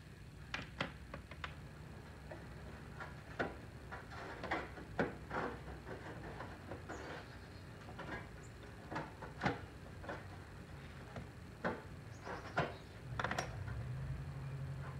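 Scattered clicks and light knocks of hands and tools on parts in the engine bay of a wrecked Dodge Charger being taken apart. A steady low hum begins near the end.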